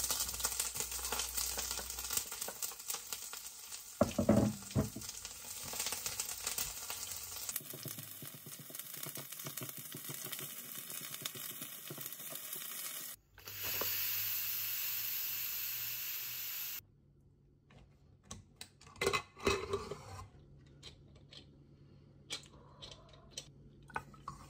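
Food frying and sizzling in a pot while it is stirred with a wooden spoon, with a few utensil knocks. The sizzle comes in short stretches of different loudness, loudest for a few seconds just past the middle.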